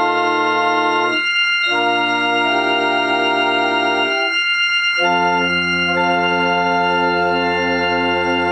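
Verschueren unit pipe organ with flute, prestant, quint and cymbal stops, playing under MIDI control: sustained full chords with short breaks between them, the last from about five seconds in with a deeper bass note added and one note pulsing about three times a second.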